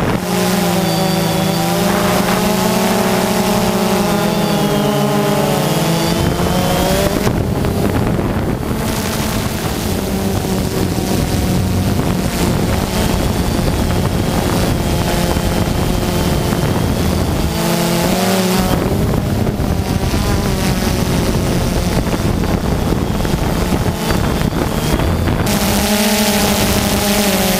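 Drone motors and propellers buzzing, recorded by the camera on board, over wind rushing on the microphone. The buzz shifts up and down in pitch as the drone manoeuvres. It stands out clearly for the first several seconds and again near the end, and in between the wind noise is louder.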